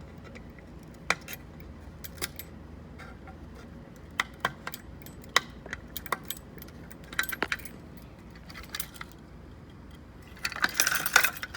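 Scattered sharp metallic clinks and ticks, like small metal objects or keys knocking together, with a denser burst of jangling near the end.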